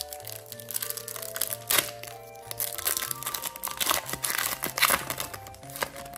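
Foil Pokémon booster-pack wrapper crinkling as it is handled, with sharp crackles, the loudest about two seconds and about five seconds in. Background music with sustained notes plays throughout.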